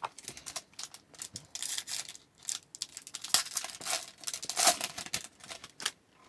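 Foil trading-card pack wrapper being torn open and crinkled by hand: an irregular crackling rustle that stops near the end.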